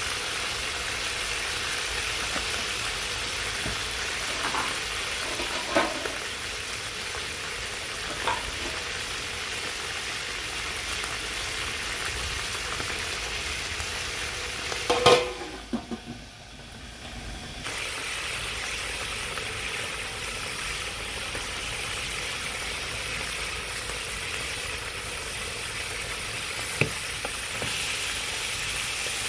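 Steady hiss of an open wood fire burning under an aluminium cooking pot, with a few sharp knocks, the loudest about halfway through, after which the hiss briefly drops away.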